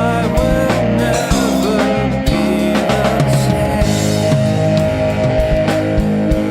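Rock music with guitar, bass, drum kit and vocals.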